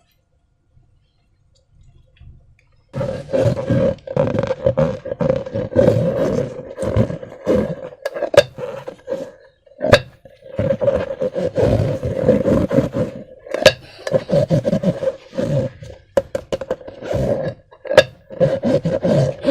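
A slime-filled balloon being squeezed and worked: loud, irregular squelching and rasping with sharp clicks and a steady squeal running through it, starting about three seconds in.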